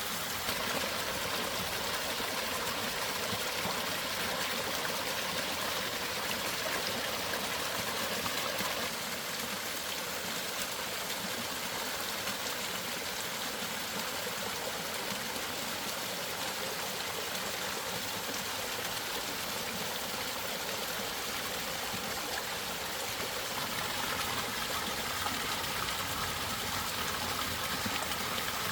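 Mountain valley stream running steadily, a constant rush of water.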